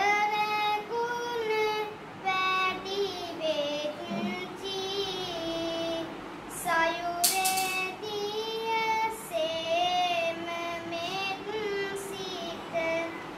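A young boy monk chanting Sinhala kavi bana, sermon verses sung solo in long, wavering held notes with short breaks between phrases.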